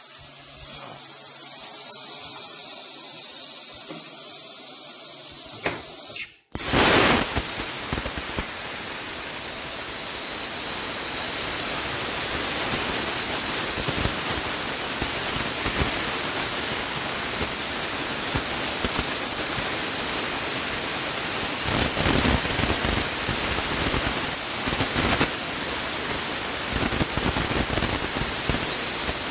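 CNC plasma cutter's torch hissing steadily as it cuts a test plate with compressed air. The sound breaks off for an instant about six seconds in, then comes back louder and fuller.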